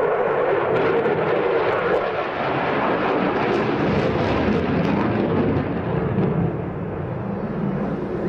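Eurofighter Typhoon's twin Eurojet EJ200 turbofans heard from the ground as loud, continuous jet noise during a display pass, with crackling through the first half. The level eases slightly about six and a half seconds in.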